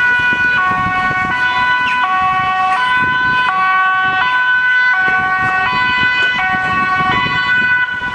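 Ambulance two-tone siren wailing as the ambulance approaches, switching between a high and a low note about every 0.7 seconds.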